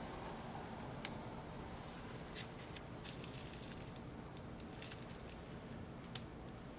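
Faint, scattered small clicks and ticks from handling small parts and tools inside an opened MacBook Air, over a low steady hiss.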